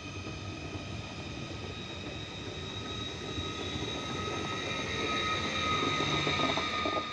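Electric multiple unit passing close by: wheels rumbling over the rails under a steady, even-pitched electric whine. It grows louder toward the end, then cuts off suddenly.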